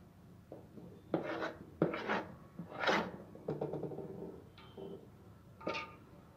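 A steel spoon scrapes and knocks against the inside of an aluminium bowl as it gathers thick kova (milk peda) dough: a series of short, uneven scrapes.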